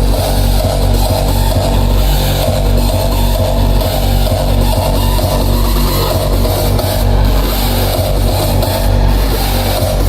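Loud hardstyle dance music over a club sound system, with a heavy distorted kick and bass and distorted lead synths, recorded on a phone's microphone.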